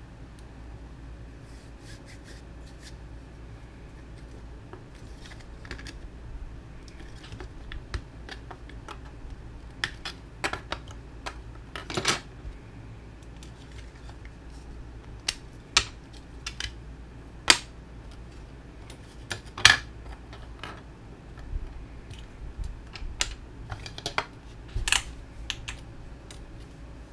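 Irregular sharp clicks and taps of small hard objects being handled, sparse at first and busier and louder through the middle and later part, over a steady low hum.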